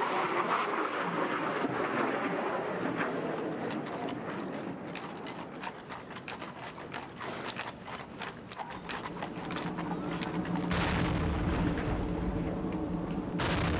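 Jet flyover roar fading away, then a run of sharp clicks, then two booming cannon shots of an artillery gun salute about two and a half seconds apart near the end.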